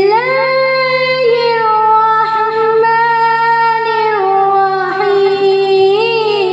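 A girl's voice reciting the Quran in melodic qirat chant through a microphone and loudspeakers, holding long notes that bend slowly in pitch, with a change of note about four seconds in.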